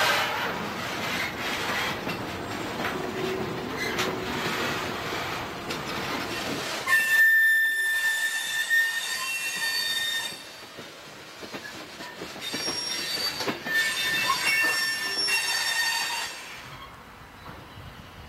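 Freight train cars rolling past close by, steel wheels rumbling on the rails. High-pitched wheel squeal breaks out about seven seconds in for a few seconds and again near the end, then the sound drops away.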